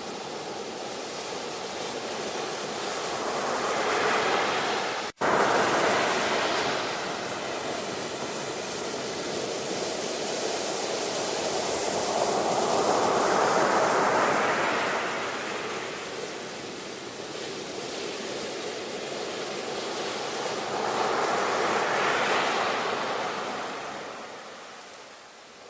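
Ocean surf: waves breaking and washing in, swelling and ebbing in three slow surges. About five seconds in, the sound drops out for an instant, like a cut in the audio.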